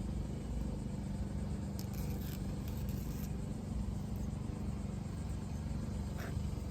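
A steady low engine hum, with a few faint light crackles of backing film being peeled off adhesive tape.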